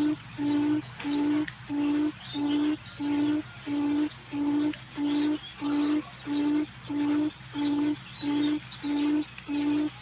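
Forest quail lure call: a low, single-pitched hooting note repeated steadily about one and a half times a second. Faint high chirps of other birds and a steady low hum lie underneath.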